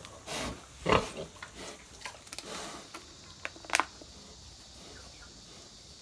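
A sow and her piglets grunting, a few short calls over the first four seconds, then quieter.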